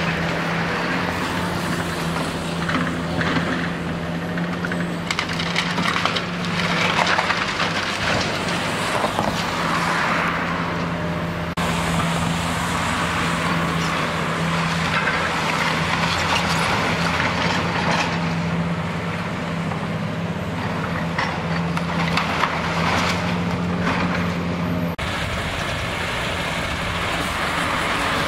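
Hydraulic demolition excavator running with a steady engine drone while its grab tears into a brick building's walls and timber roof, bringing crunching and clattering of breaking masonry and wood at intervals.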